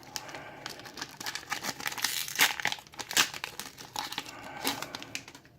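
Foil wrapper of a Pokémon Evolutions booster pack crinkling as it is torn open and handled, with a quick run of crisp crackles and a few louder rips about two to three seconds in. It dies away just before the end.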